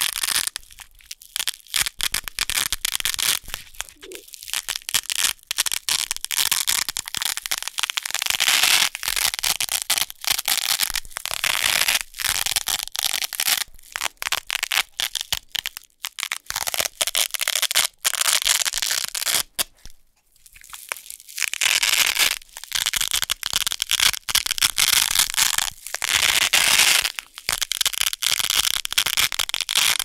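Wide hook-and-loop (Velcro) tape being peeled apart by hand again and again: a dense, crunchy crackling rip in long pulls, with two short pauses a little past the middle.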